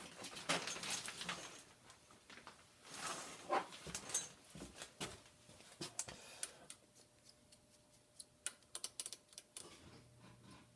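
Shop handling noises: rustling, then a string of light clicks and taps of tools and the metal workpiece being handled. A faint low hum starts near the end.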